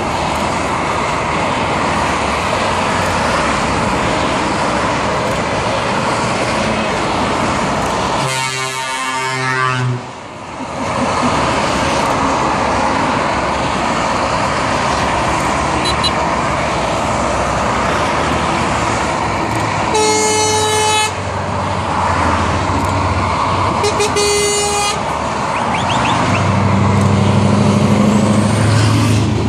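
Steady motorway traffic noise from a truck convoy passing below, broken by truck horns three times: a blast about a third of the way in and two shorter blasts about a second long past the middle. Near the end a truck's engine passes close beneath.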